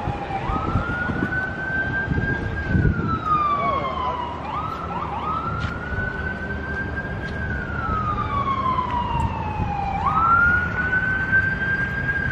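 An emergency vehicle's siren wailing, its pitch rising, holding and then sliding slowly down about every five seconds.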